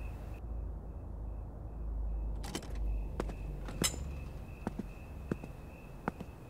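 Footsteps, about one every two-thirds of a second from a couple of seconds in, the loudest near the middle. Under them runs a low rumble, and a faint high chirp pulses a few times a second.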